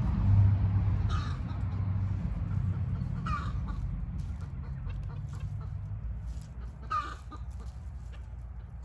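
Orpington hens clucking: three short calls, about a second in, a little past three seconds and near seven seconds. A low steady rumble runs underneath.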